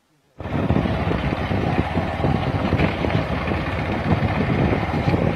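A motorcycle engine running steadily as the bike rides along a dirt track, with wind noise on the microphone; it starts abruptly about half a second in.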